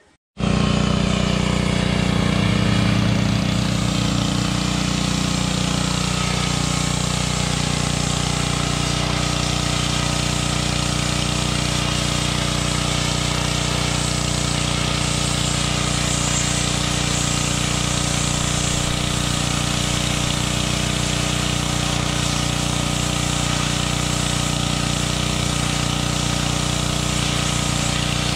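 An engine idling steadily, starting abruptly and holding an even, unchanging note.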